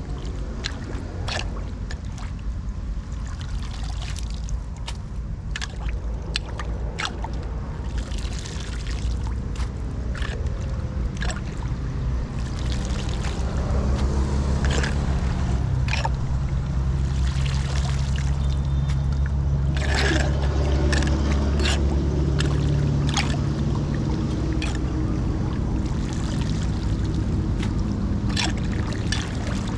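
Flood water trickling and splashing around a street drain, with many short splashes or knocks. Under it is a steady low rumble that grows louder about halfway through and eases off later.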